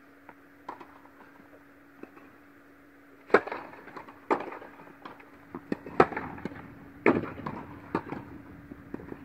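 Tennis rally: a few light ball bounces, then about three seconds in a serve and a run of sharp racket-on-ball strikes roughly once a second, with quieter bounces between. Each strike echoes in the hall, over a steady low hum.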